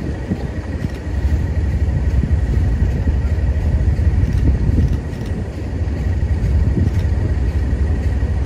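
First-generation British Railways diesel multiple unit running in towards the platform: a steady low engine rumble.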